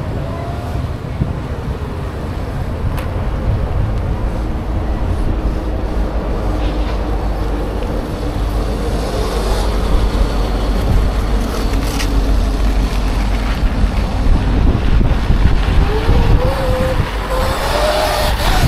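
Wind buffeting the microphone on an electric unicycle riding at speed, with a faint motor whine that glides and rises in pitch near the end.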